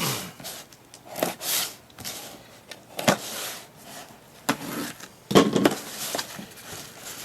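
Packaging being handled and opened: uneven rustles, crinkles and sharp clicks of wrapping and cardboard coming in separate bursts, the loudest cluster a little past the middle.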